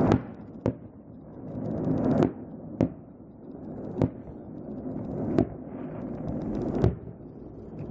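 Aerial firework shells bursting in a display, with about seven sharp bangs at irregular intervals of about half a second to a second and a half. A rushing noise swells between the bangs.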